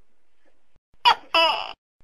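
Tokay gecko giving one two-syllable "to-kek" call about a second in: a short first note followed at once by a longer note that falls in pitch, over a faint steady hiss.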